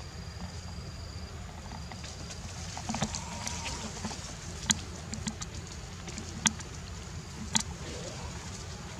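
Dry leaf litter crackling with a few sharp snaps, about three standing out in the second half, as a baby monkey moves over the ground, over a low steady rumble.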